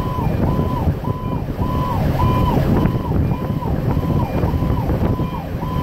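An electronic fire-engine siren cycling in a rapid rise-and-fall wail, nearly twice a second, heard from inside the cab of a moving Pierce Arrow XT fire engine over its diesel engine and road rumble.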